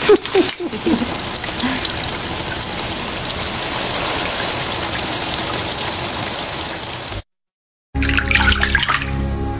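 Shower spray running steadily, with a brief voice sound near the start. It cuts off suddenly about seven seconds in, and after a short silence music starts with a short splash of water.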